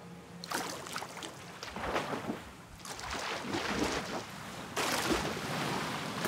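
Pool water splashing as a swimmer kicks and strokes beside the camera. The splashing starts about half a second in, comes in uneven bursts, and grows louder and steadier in the second half.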